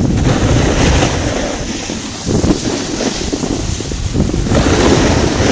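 Wind buffeting a moving microphone in an uneven low rumble, over the hiss and scrape of skis sliding on snow.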